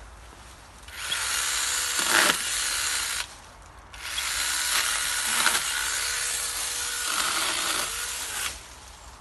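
Campagnola T-Cat battery-powered one-handed pruning saw, a small chainsaw with a 4-inch guide bar, cutting through a tree branch. It runs in two goes: a short one of about two seconds starting a second in, then a longer one of about four seconds, until the branch is cut through.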